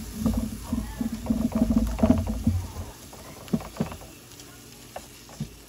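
Spatula stirring and scraping chopped bell peppers, onion and garlic around an oiled pan, in quick rubbing strokes, followed by a few sharp knocks about three and a half seconds in.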